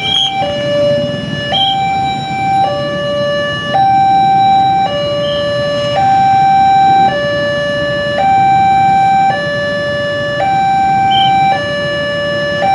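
Railway level-crossing warning alarm sounding as a train approaches: an electronic two-tone signal that alternates between a higher and a lower tone, each held about a second. Underneath is the low steady hum of waiting motorcycles and car traffic.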